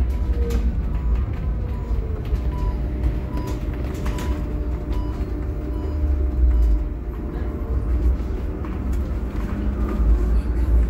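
Cabin ride noise of a Scania/Higer Fencer F1 battery-electric bus under way: a steady low rumble from the road with thin, steady whining tones from the electric drive and scattered small rattles and clicks.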